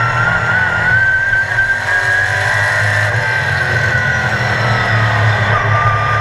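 Sportsman stock car's engine at racing speed, heard from inside the cockpit: a loud, steady low rumble under a high engine whine. The whine climbs in pitch in the first second, holds, then drops near the end.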